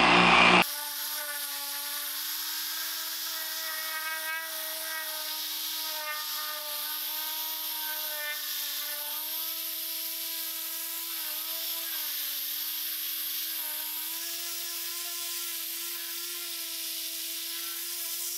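Dual-action polisher with a foam cutting pad running on car paint. After a louder stretch cuts off abruptly just under a second in, its motor gives a steady hum whose pitch wavers slightly.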